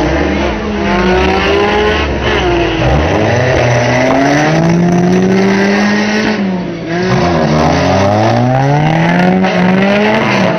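Several banger-racing car engines revving and accelerating, their pitches rising and falling over one another as the pack pulls away at the start of a race.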